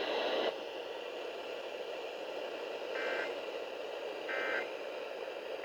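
Emergency Alert System end-of-message data bursts received on a radio: three short buzzy digital bursts about a second and a half apart, marking the end of the severe thunderstorm warning. Steady radio hiss runs underneath, and a brief sound cuts off about half a second in.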